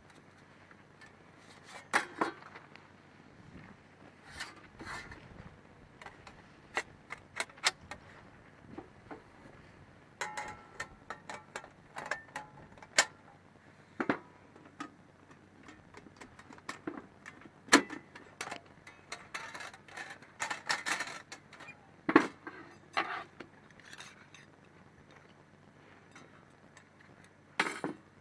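Metal camping gear being handled and set up: irregular clicks and knocks, some with a brief metallic ring.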